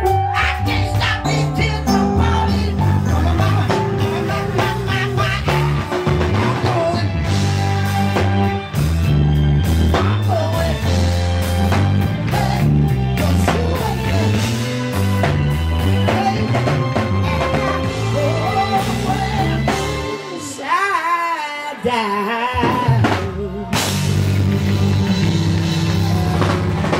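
Southern soul music with a steady bass line, drums and a singer's voice. About twenty seconds in the bass and drums drop out for a few seconds under a wavering vocal run, then come back in.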